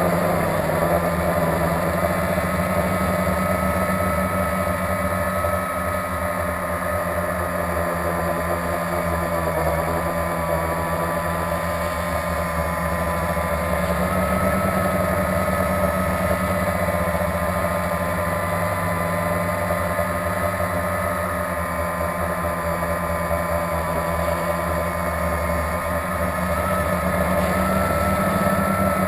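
Blade 350 QX quadcopter's four electric motors and propellers humming steadily, heard up close from the drone itself; the pitch shifts slightly now and then as it holds and turns.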